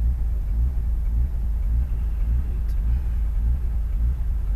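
Mitsubishi Lancer Evo 6's turbocharged four-cylinder engine and drivetrain heard from inside the cabin at stage speed: a steady low rumble with a faint regular pulse. The engine has a misfire and is being short-shifted at about 4,250 rpm because of it.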